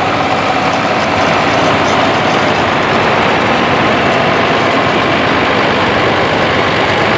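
Vintage farm tractor engines running steadily as a John Deere 4020 and an International Farmall 656 drive past in line.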